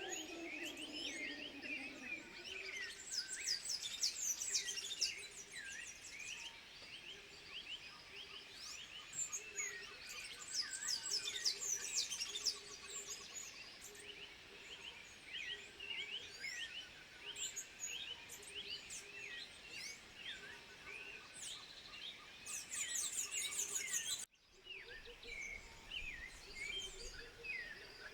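A dense chorus of many birds chirping and whistling, with a softer low note repeating steadily underneath for much of the time. The sound cuts out briefly about 24 seconds in.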